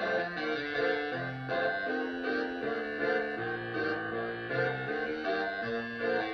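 Concert band music from a concerto for baritone saxophone and band: a busy passage of many short pitched notes over low sustained tones.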